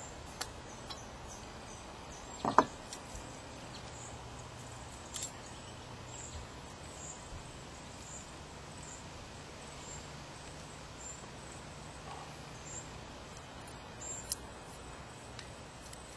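Quiet outdoor ambience with faint, short high chirps repeating through it. It is broken by a few sharp clicks and one louder knock about two and a half seconds in.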